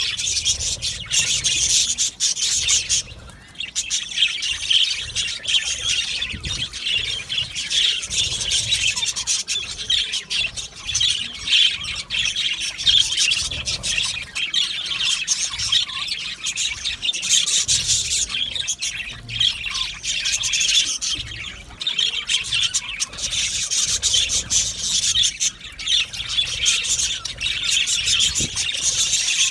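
Many budgerigars chattering at once in a dense, continuous chorus of chirps and warbles, typical of a budgie colony aviary.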